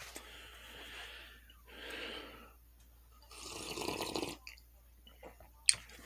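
A person drinking hot coffee close to the microphone: three airy slurping sips, the third the longest and loudest, followed by a single sharp click near the end.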